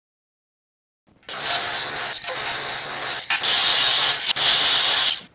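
Abrasive cut-off wheel grinding through steel flat bar, starting about a second in: a loud, harsh, hissing whine that dips briefly a few times as it cuts.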